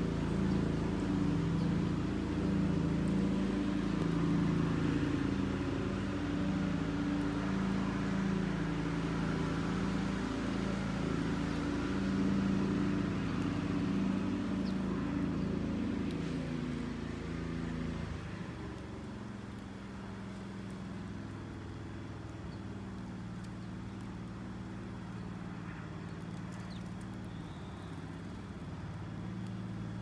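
Low motor hum made of several steady tones that shift in pitch now and then. It drops to a quieter level about two-thirds of the way through.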